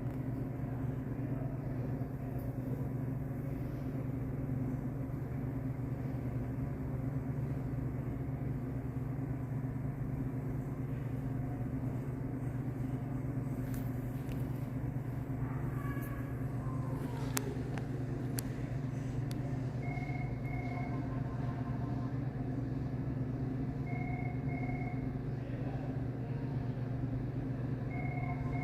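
Steady low hum of a running vehicle. About two-thirds of the way in, a short double electronic beep starts, repeating about every four seconds.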